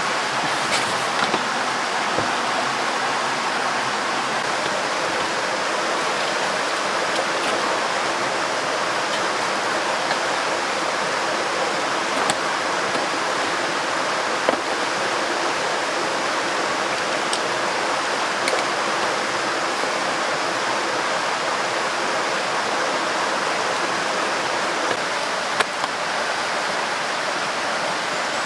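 A river rushing steadily past, with a few faint sharp ticks scattered through it.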